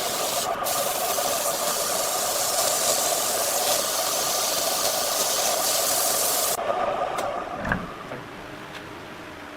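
Woodworking power tool running with a loud, steady hiss over a hum. The hiss cuts off suddenly about six and a half seconds in, the hum fades over the next second, and a single knock comes near eight seconds.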